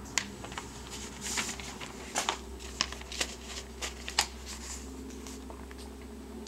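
Sheets of notebook paper being handled and swapped, a string of short crisp rustles and taps over a steady low room hum.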